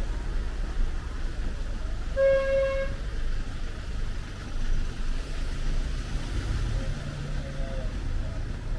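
A vehicle horn gives one short, steady toot about two seconds in, over a continuous low rumble of traffic.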